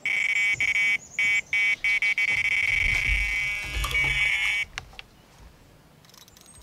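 Electronic carp bite alarm sounding a high-pitched, almost unbroken tone with brief gaps as line is pulled from a rod: a run from a taking fish. It stops about four and a half seconds in, with low thumps as the rod is handled.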